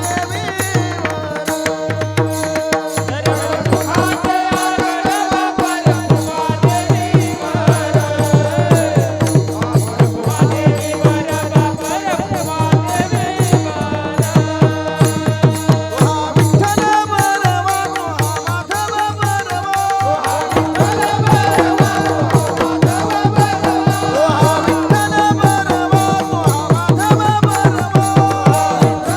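Devotional kirtan music: a melody sung or played in bending lines over a steady held drone note, with a hand drum beating a quick, even rhythm.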